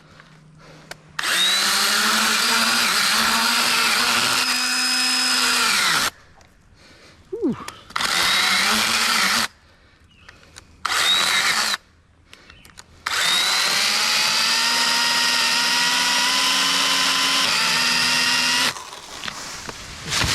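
Echo electric pruning saw's motor and chain running with a whine in trigger bursts, cutting a tree limb: a run of about five seconds, two short bursts, then another long run, each winding down as the trigger is released.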